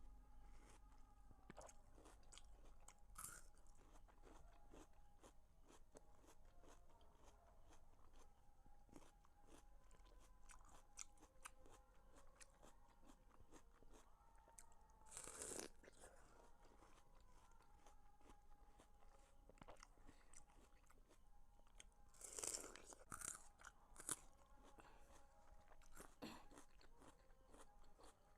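A person eating watermelon close to the microphone: quiet wet chewing with small clicks throughout, and a few louder crunchy bites spread across the clip.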